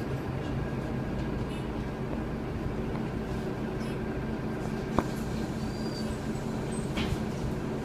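Irisbus Agora Line city bus's diesel engine idling, heard inside the passenger cabin as a steady low hum, with a sharp click about five seconds in.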